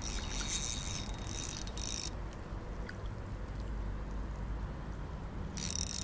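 Spinning reel being worked while a hooked fish is played and reeled in: a whirring, ratchety run for about two seconds, then quiet, then a short second spell near the end.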